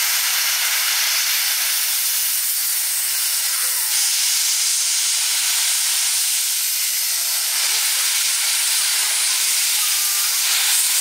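C61 2 steam locomotive blowing steam from its cylinder drain cocks: a loud, steady hiss with no exhaust beats.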